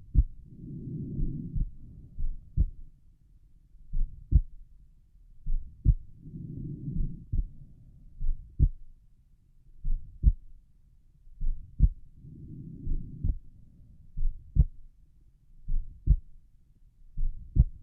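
Human heart sounds heard through a stethoscope at the pulmonic valve area: a slow, regular lub-dub, each beat a pair of short low thumps. A soft rush of breathing swells up about every six seconds.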